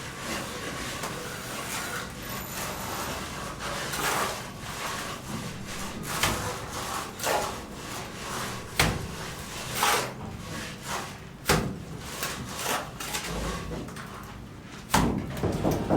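Irregular scraping or rubbing strokes with a few sharper knocks, as of hand work on wood or building materials.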